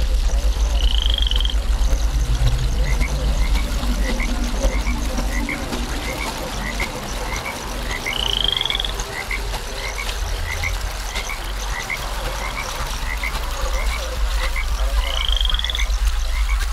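Soundtrack of repeating animal calls, like a night-time frog chorus: short chirps about three every two seconds, with a higher rising call three times about seven seconds apart, over a steady low hum.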